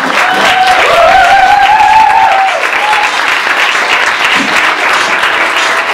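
Audience applauding, with whooping cheers over the clapping in the first few seconds.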